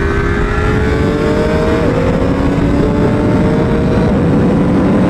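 Triumph Daytona Moto2 765 race bike's three-cylinder engine pulling hard on track, its pitch climbing steadily and dropping back at upshifts about two and four seconds in, with loud wind rush on the onboard microphone.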